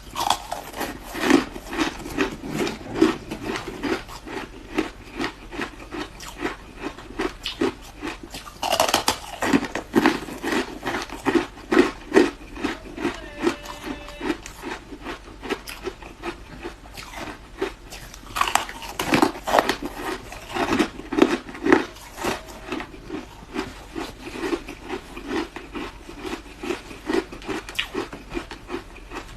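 Ice being bitten and chewed close to the microphone: a steady run of sharp crunches, about two a second, with louder bites about a third of the way in and again just past the middle.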